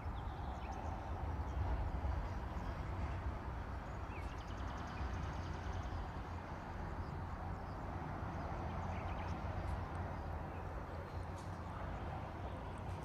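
Steady outdoor background noise with a low rumble, like wind on the microphone. Faint high chirps come now and then, with a short rapid trill about four seconds in.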